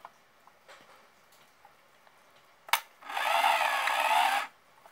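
Compact point-and-shoot film camera firing: a sharp shutter click, then its small motor whirs for about a second and a half as it winds the film on.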